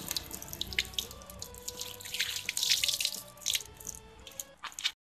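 A thin stream of water poured from above, splattering and dripping onto a wet wooden plank and the snake lying on it, heaviest about two and a half to three seconds in. The sound cuts off suddenly just before the end.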